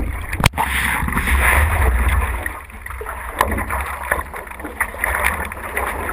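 Stand-up paddleboard on a calm lake: water splashing and lapping at the board and paddle strokes in the water, picked up close to the surface by a camera on the board's nose. A sharp knock about half a second in, and a heavy low rumble on the microphone for the first couple of seconds, then scattered small splashes and drips.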